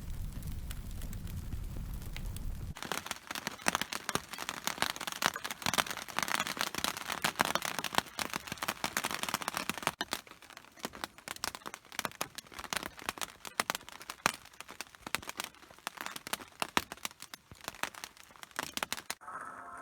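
A low rumble for the first few seconds, then a wood campfire crackling, a dense, irregular run of sharp snaps and pops.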